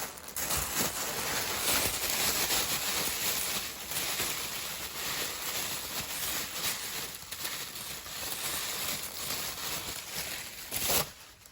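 Packing paper and wrapping rustling and crinkling as it is handled and torn open, a continuous crackly noise that stops near the end.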